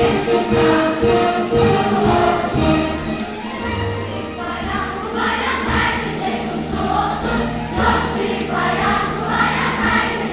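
Children's choir singing in harmony over sustained low instrumental accompaniment.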